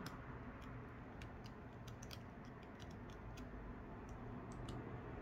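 Faint, irregular light clicks and ticks of a small screwdriver working the tiny screws out of a Samsung Galaxy A21s's middle frame.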